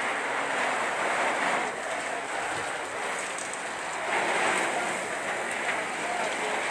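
Steady rushing hiss of water from fire hoses spraying onto a burning house, swelling a little a couple of times.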